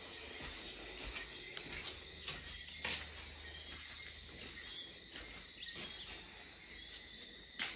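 A faint, steady, high chorus of insects with bird chirps through it. Scattered knocks and taps sound close by, the loudest about three seconds in and just before the end.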